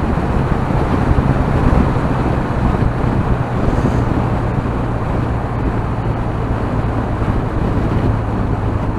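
Twin-cylinder motorcycle engine running steadily at a cruise, under a steady rush of wind and road noise on the moving bike.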